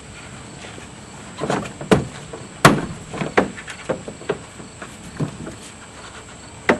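Irregular knocks and clicks of a car door's outer skin panel being worked into place on the door frame, the loudest knock about two and a half seconds in.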